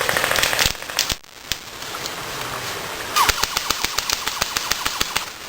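Airsoft guns firing in rapid strings of shots: a short rattle at the start and, about three seconds in, a run of sharp cracks of about a dozen a second lasting some two seconds.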